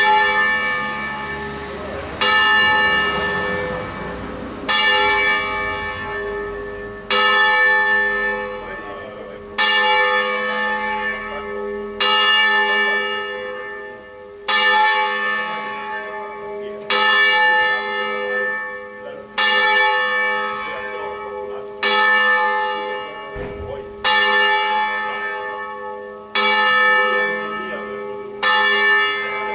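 A single swinging church bell, the second bell of a five-bell ring hung for the Ambrosian system, rung in distesa: it swings full circle on its wheel and strikes once about every two and a half seconds. Each stroke rings on and fades before the next.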